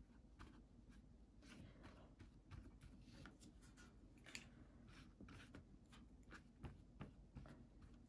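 Faint scratches and soft taps of a watercolour brush stroking paint onto paper, over quiet room tone; two sharper ticks stand out in the second half.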